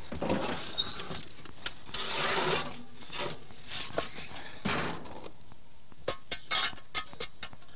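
Kitchen handling noises: rustling and scraping as things are lifted from a box, then a quick run of sharp clinks and knocks of pots and dishes in the last two seconds.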